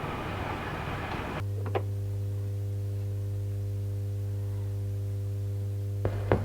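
Steady low electrical hum that starts abruptly about a second and a half in, cutting off a noisy stretch that sounds like traffic. A single click follows shortly after it starts, and two more clicks come near the end.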